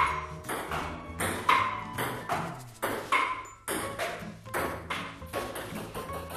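Table tennis rally: the celluloid ball clicks back and forth off paddles and the table about twice a second, over faint background music.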